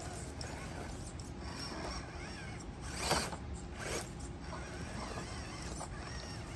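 Traxxas TRX4M micro crawler's brushed motor and gear drivetrain whining at crawling speed, the whine rising and falling with the throttle, as the tires grind over rock and gravel. There is a louder knock of the truck against rock about three seconds in and another about four seconds in.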